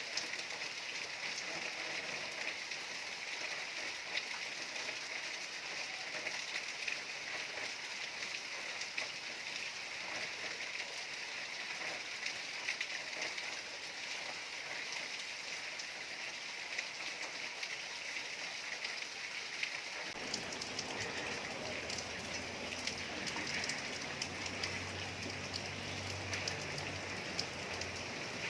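Steady rain falling, an even hiss of drops on surfaces. About two-thirds of the way in the sound gets fuller, with more distinct individual drop impacts, and a faint low hum joins briefly near the end.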